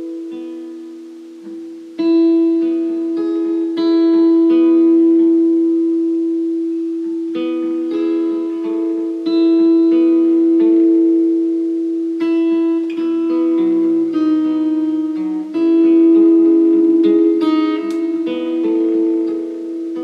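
Acoustic guitar strummed and picked in an instrumental outro, chords ringing out and changing every second or two, with no singing.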